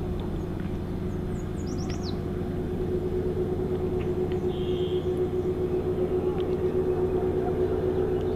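A steady mechanical hum with one held tone, growing a little louder through the second half. A bird gives a brief run of quick, high, falling chirps about a second and a half in.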